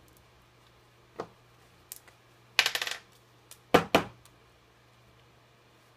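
Small hard objects clicking and knocking on a tabletop as a glue container is picked up and handled: a couple of light clicks, a short rattle near the middle, then two sharp knocks a quarter second apart.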